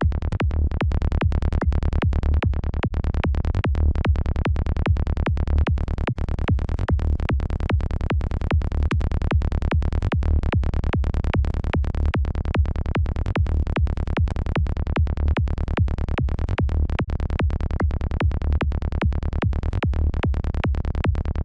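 Psytrance kick-and-bass loop in D played from the KickNBassGel software synth: a steady, rapid electronic pulse with a heavy low end, kick and rolling synth bassline repeating without a break.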